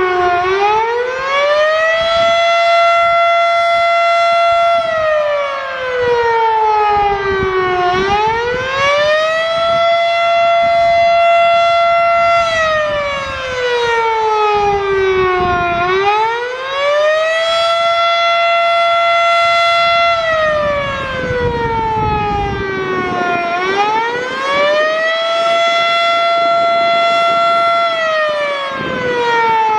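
Federal Signal Model 5 electromechanical outdoor warning siren sounding its fast wail test signal: a loud single-tone wail that rises over about two seconds, holds its top pitch for about three, then slides back down, repeating about every eight seconds, about four times.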